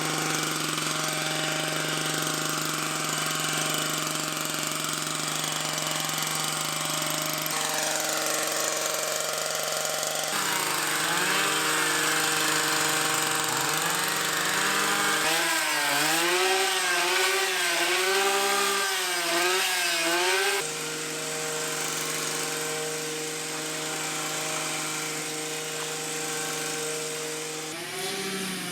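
Two-stroke chainsaw running at high revs, its pitch swinging up and down about once a second as it bites into and comes out of the wood, with abrupt jumps between stretches of running.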